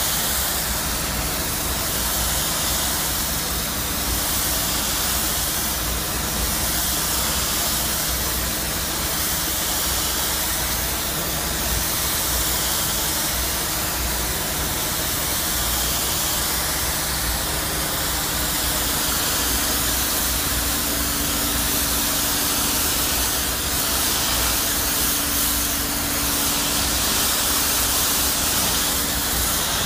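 THERMATECH hot-water steam cleaner's lance jetting onto brickwork at low pressure and high temperature, up to 150 °C: a steady hiss of spray and steam, with a low rumble from the machine beneath. A faint steady hum joins about two-thirds of the way through.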